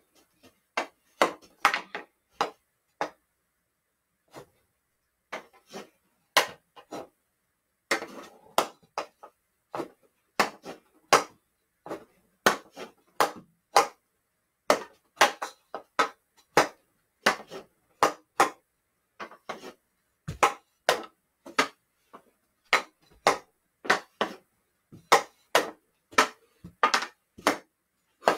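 Hockey sticks striking a hard hockey ball as it is passed back and forth: sharp, irregular clacks about one or two a second, some in quick pairs.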